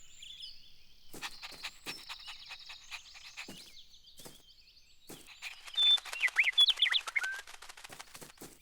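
Birds chirping and trilling, with a louder burst of quick gliding calls about six to seven seconds in.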